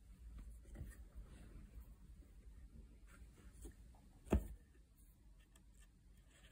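Hand embroidery on fabric stretched in a hoop: faint scratchy rustling of the needle and thread drawn through the taut cloth. One short sharp knock about four seconds in.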